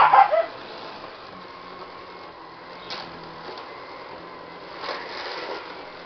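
Siberian husky puppy barking at a running upright vacuum cleaner: a few sharp barks right at the start, a short one about three seconds in and a longer one near the end, over the vacuum's steady hum.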